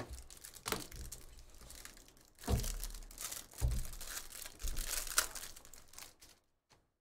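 Clear plastic wrapper of a trading card pack crinkling and tearing as it is opened by hand, with irregular rustles and a few louder handling bumps as the card stack is pulled out.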